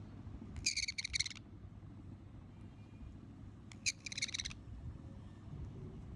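Small parrot giving two short, harsh chattering calls about three seconds apart, each a quick run of rapid pulses, over a low background rumble.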